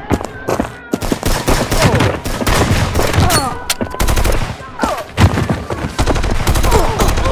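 Film gunfire sound effects: rapid bursts of automatic gunfire, shot after shot in quick succession, with short falling whistles among them. A deep low rumble joins in about four seconds in and again near the end.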